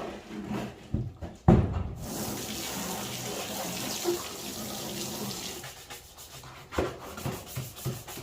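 Water running from a garden hose, starting about two seconds in and easing off a few seconds later, after a couple of knocks, the loudest about a second and a half in.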